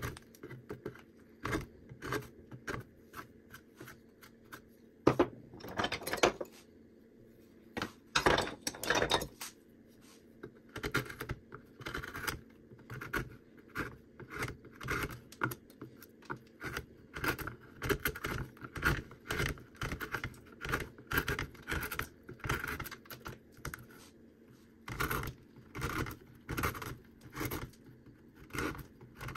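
A carving knife and a small gouge cut into cottonwood bark by hand, shaving chips off in many short, irregular scraping strokes. A few longer slicing cuts come around six and eight seconds in.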